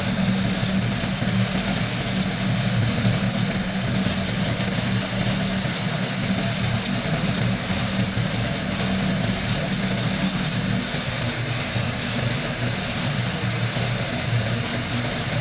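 Sandblaster running steadily: a continuous hiss of compressed air and grit with a low hum underneath.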